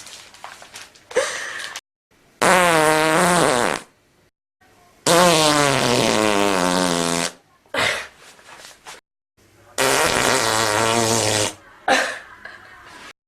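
A string of farts edited back to back: three long, loud, buzzy ones of one and a half to two seconds each, their pitch wavering and sagging, with shorter ones between them.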